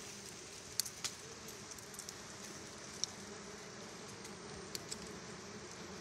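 Honeybees buzzing steadily around their exposed comb, a low even hum, with a few brief sharp clicks about one second in and again near three seconds.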